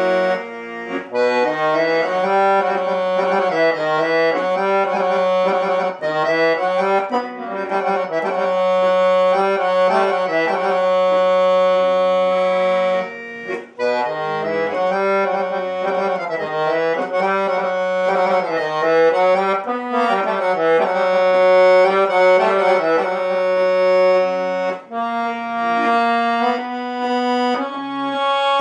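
Solo Dallapé piano accordion playing a traditional tune: a melody on the right-hand keys over long-held bass notes. The melody breaks off briefly about halfway through, then a similar phrase starts again.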